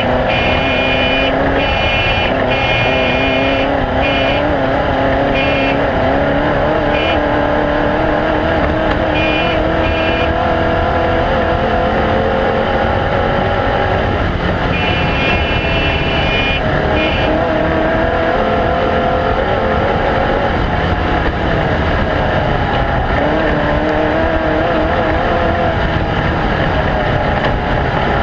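Off-road race car engine running hard, its pitch rising and falling with the throttle, over a constant loud noise. A high whine comes and goes, mostly in the first few seconds and again about halfway through.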